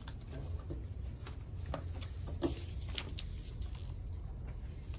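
Quiet room tone: a steady low hum with a few faint, scattered clicks and taps.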